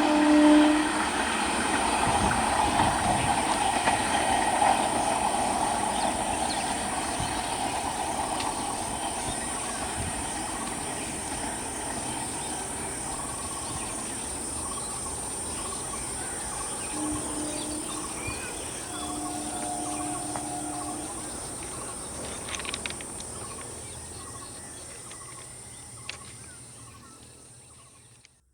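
A short electric multiple-unit train running along the track and moving away, its wheels clattering over the rails, steadily fading into the distance. A couple of faint short tones sound a little past the middle.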